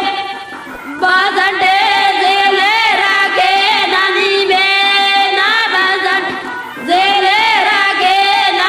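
A high female voice singing a Vagadi wedding song (vagadi geet) in long held phrases with a wavering pitch, broken by short pauses between phrases.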